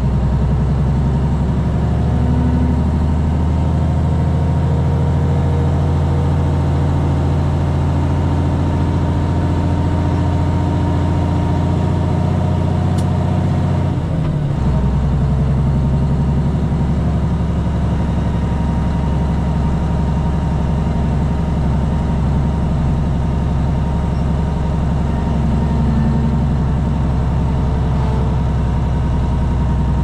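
Plow truck's engine running as it drives, heard from inside the cab: a steady engine note that changes once, about halfway through, when the low tones drop and settle at a new pitch.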